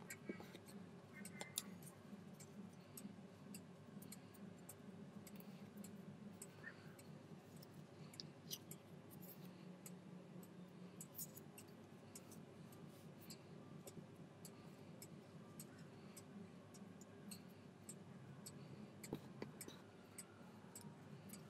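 Sheet of origami paper being folded and creased by hand: faint, irregular crackles and ticks as fingers press and run along the folds, over a low steady hum.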